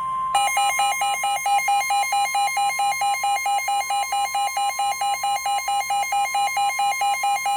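NOAA weather radio sounding its tornado-warning alert: the steady 1050 Hz EAS warning tone, with a rapid alternating alarm beep layered over it at about four to five beeps a second.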